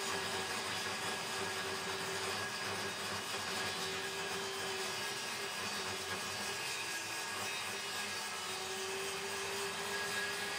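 Homemade table saw running with its blade cutting a wooden blank, while a DeWalt cordless drill spins the blank in a lathe jig: a steady whirring machine noise with a faint whine that wavers and dips for a moment midway.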